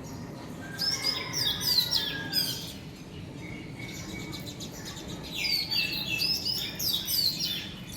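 Small birds chirping and twittering in two bouts of quick high, sliding notes, the first about a second in and the second about five seconds in, over a faint steady background hum.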